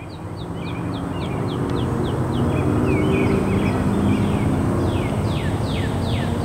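A bird chirps in quick descending notes, about three a second at first and longer downward sweeps near the end. Under it, a low droning hum from an approaching diesel freight train grows steadily louder.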